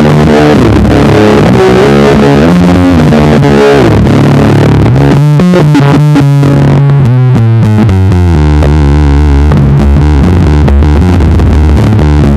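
Electric bass played through a Darkglass Microtubes B3K overdrive and a fuzz pedal: a slow, heavily distorted stoner/doom riff of long sustained notes, with a wavering, fluttering tone in the middle of the passage.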